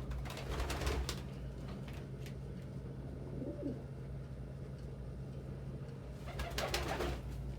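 Domestic pigeons cooing, one short arched coo in the middle and louder noisy stretches near the start and near the end, over a steady low hum.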